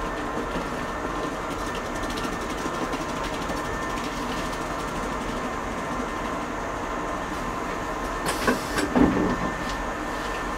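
Running noise heard in the vestibule of a moving JR 185 series electric train motor car (MoHa 184): a steady rumble of wheels on rail with a faint steady whine. About eight and a half seconds in there is a short burst of noise and a couple of knocks.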